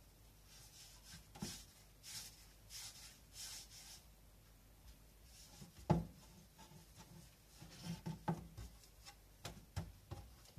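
Hands rolling pieces of bread dough against a wooden board, making soft rubbing swishes. About six seconds in there is a sharp knock as a wooden rolling pin meets the board, then light knocks and rubs as the pin rolls the dough flat.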